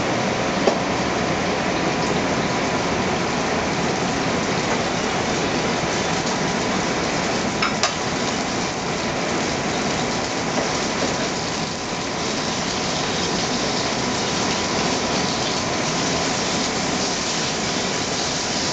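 Striped bass fillet sizzling steadily as it sears in very hot olive oil in a stainless steel pan over a gas burner, with a couple of small sharp clicks.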